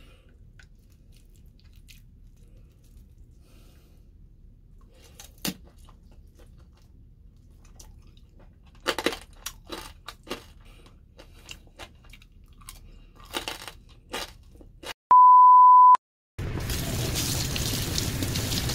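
Crispy fried pork belly crunching between the teeth in a string of sharp crackly bites with chewing. Then a loud steady electronic beep lasting about a second, and after a brief gap a tap running, water splashing over raw pork belly in a steel sink.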